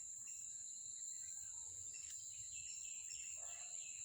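Steady high-pitched drone of insects, with a series of short bird chirps from about two and a half seconds in.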